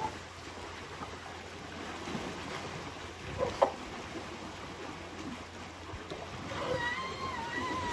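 Young Asian elephants wading in a muddy pool: steady sloshing and splashing of water, with two sharp splashes close together a little before the middle. Near the end a high, wavering call begins.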